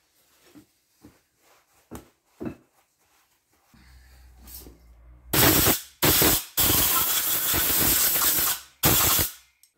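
A few light knocks of metal parts being handled, then a cleaning spray hissing in four bursts, the third about two seconds long, as hydraulic pump parts are cleaned of their protective coating.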